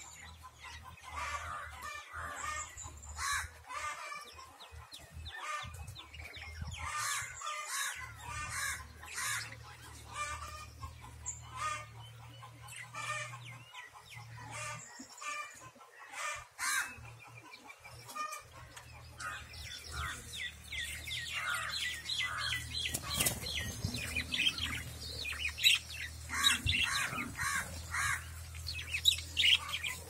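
A flock of caged budgerigars chirping and chattering, many short quick calls overlapping; the chatter grows busier and louder about two-thirds of the way through.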